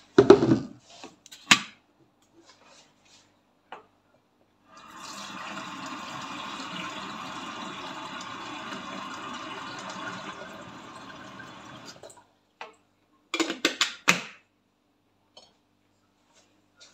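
Water running from a tap for about seven seconds, filling a kettle, with a knock near the start and a clatter of knocks near the end.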